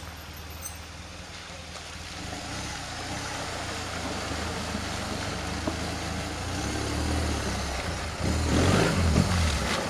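Adventure motorcycle engine running as it rides through a river ford, water spraying and splashing around the wheels. The engine and splashing grow louder as the bike comes closer, loudest near the end.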